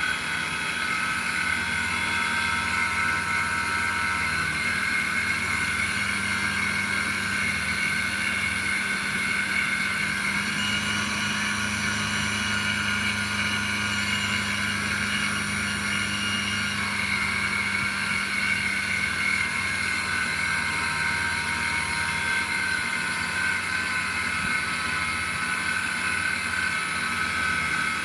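RC airplane outrunner motor spinning a rotor in a battery-charging rig, running steadily: an even electric whine of several high tones over a low hum.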